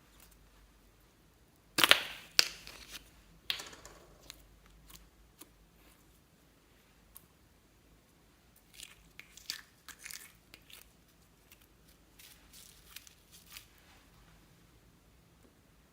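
Crackling crunches from material being crushed and handled while it is mixed into slime. Two sharp bursts come about two seconds in, another a little later, then scattered small crackles and clicks.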